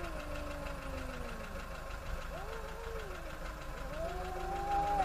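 A cat yowling in three long drawn-out calls: the first slides down in pitch, the second arches up and back down, and the third rises and carries on past the end. A low steady rumble runs underneath.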